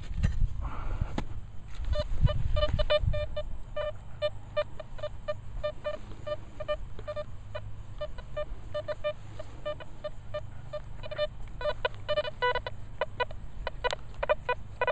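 Nokta Velox One metal detector sounding a run of short, identical beeps, about two to three a second, that turn faster and choppier near the end as the coil is swept over the dug hole. The target turns out to be aluminium can slaw, a scrap of trash. In the first seconds there are low thuds of a shovel working the soil.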